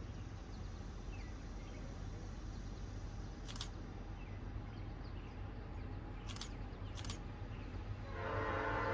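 Outdoor background with a steady low rumble and three sharp clicks. About eight seconds in, an approaching Norfolk Southern locomotive's air horn starts sounding a loud chord.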